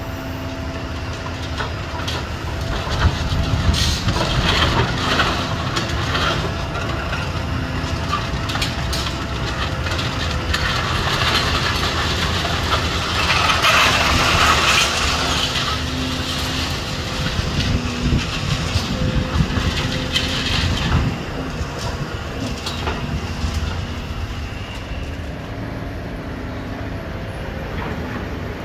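Volvo tracked excavator's diesel engine running steadily while its demolition crusher jaws bite into and break concrete rubble, with crunching and clattering of broken concrete. The crunching swells about four seconds in, is loudest midway through and comes again around twenty seconds.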